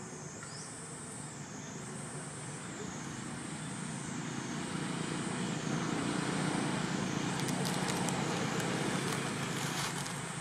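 A passing road vehicle, its rumble swelling to a peak past the middle and then easing, over a high thin whine that rises and falls in pitch about every second and a half.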